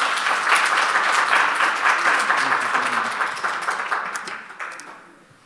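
Audience applauding: dense clapping that holds steady, then dies away about four to five seconds in.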